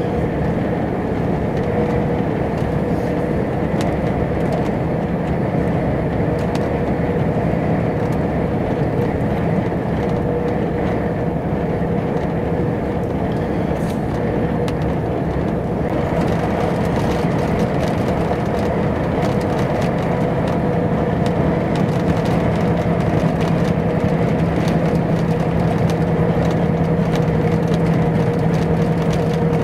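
Volvo FH truck's diesel engine running at road speed with tyre and road noise, heard inside the cab: a steady drone with a low hum that grows a little stronger over the last few seconds.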